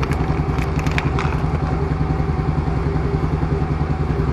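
Can-Am Outlander 850 XT ATV's V-twin engine idling steadily with an even pulsing beat, with a few light clicks in the first second or so.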